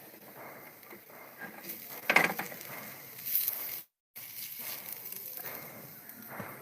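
Close eating and handling noises: irregular rustling and clicking with a sharp knock about two seconds in. The sound cuts out completely for a moment about four seconds in.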